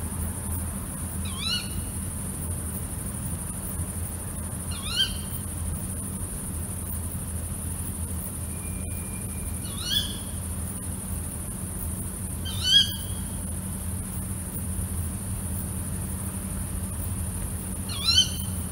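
Female tawny owl giving its sharp, rising kewick call five times, a few seconds apart, over a steady low hum and a high hiss.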